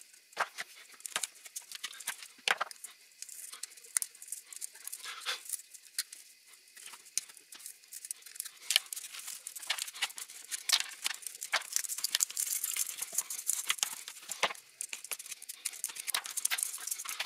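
Side cutters and pliers working the metal rim of a kitchen sieve to free its wire mesh: a string of sharp metallic clicks and snips, with the fine wire mesh crinkling, busier in the last few seconds.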